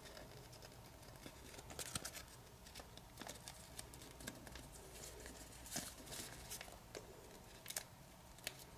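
Faint crinkling and light clicks of thin origami paper as fingers pinch and squash small folds into shape, coming at irregular moments.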